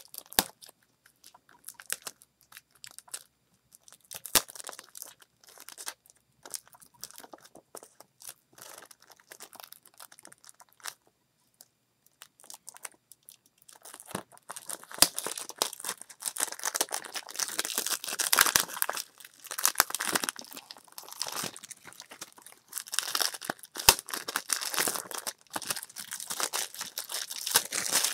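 Plastic shrink-wrap being picked at with a fingernail and then torn and peeled off a Blu-ray case: scattered small clicks and scratches at first, then dense crinkling and tearing from about halfway through.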